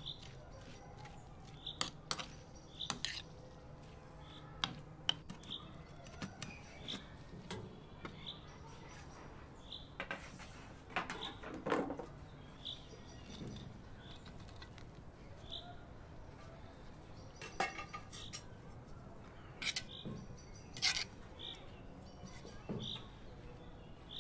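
Cooking clatter: utensils clinking, knocking and scraping against a bowl and a metal pot, with a louder scraping stretch about halfway through. A bird chirps with a short high note about once a second throughout.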